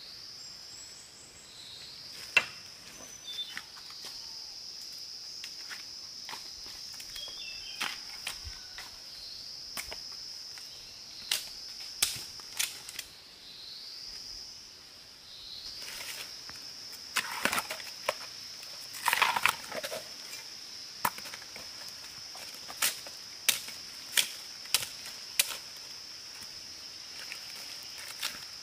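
A steady high-pitched insect drone that breaks off and swells back in twice, with sharp clicks and knocks scattered over it, the loudest one about two seconds in and a busy run of them about two-thirds of the way through.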